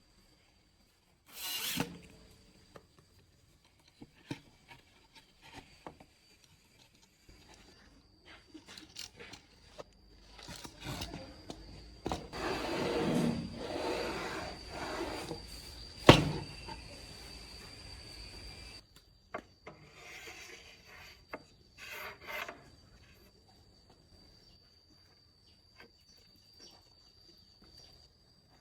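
Wood being handled and rubbed, in scattered scrapes that build up in the middle, with one sharp knock about 16 seconds in. A faint steady high tone runs underneath.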